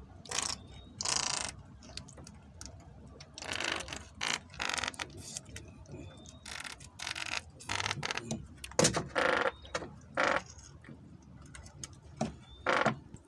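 Monofilament fishing handline being handled and pulled taut in the fingers while a knot is tied, giving about a dozen short, scratchy, rattly bursts at irregular intervals.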